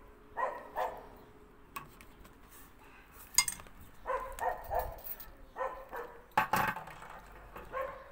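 A dog barking in short yaps, in clusters of two or three, with a couple of sharp clicks, the loudest a little over three seconds in.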